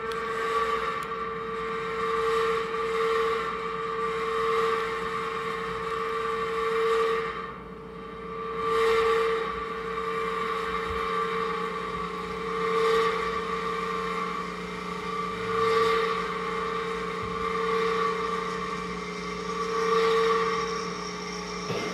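Improvised electronic sound from effects pedals and a mixer through an amplifier: several steady held tones over a hiss, swelling and fading every few seconds, with a brief dip about eight seconds in.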